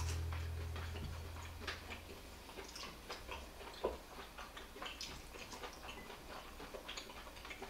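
Scattered light clicks and taps of wooden chopsticks picking sausage and vegetables out of a small cast-iron dish, mixed with soft eating sounds. The clicks come irregularly, the sharpest about four seconds in.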